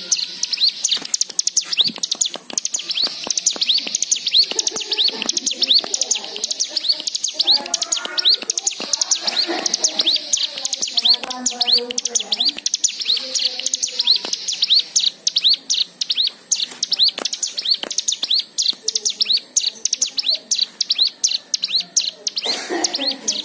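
Cigun (ciblek gunung, a small prinia) calling in a fast, unbroken run of short high chirps, several a second, with a softer, lower warbling running under them through the middle.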